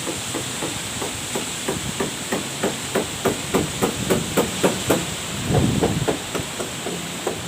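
Rapid series of sharp knocks, about three or four a second, over steady wind noise, with a louder low rumble of wind about five and a half seconds in.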